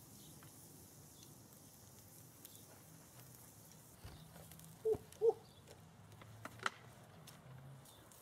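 Wood fire crackling faintly in a fire pit with scattered small pops. About five seconds in come two short squeaks close together, then a sharp click.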